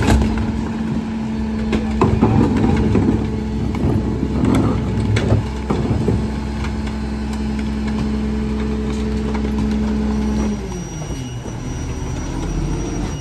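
Rear-loader garbage truck's diesel engine held at raised revs with a steady hum while the hydraulic packer runs, with a few sharp knocks and bangs as a cart is emptied into the hopper in the first half. About ten seconds in, the engine note drops back down as the packer cycle ends.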